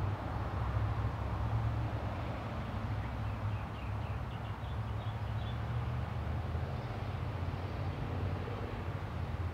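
Steady low rumble of outdoor background noise, with a few faint high chirps a few seconds in.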